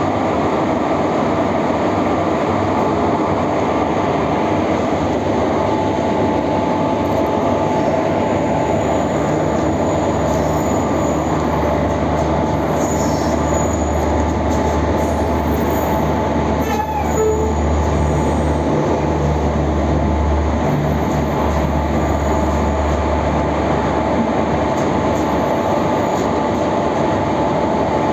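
Express passenger train arriving at a station platform: a loud, steady rumble of the coaches rolling over the rails, with wheel squeal.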